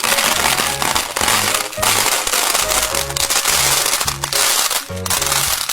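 Upbeat background music with a repeating bass line, overlaid by a loud continuous crackling hiss that drops out briefly twice.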